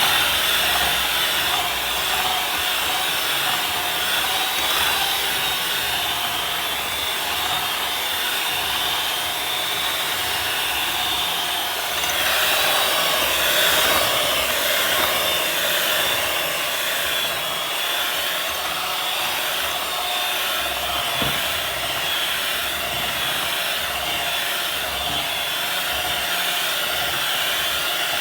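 Electric hand mixer running steadily as it beats cake batter, a continuous motor whir with a slightly wavering pitch.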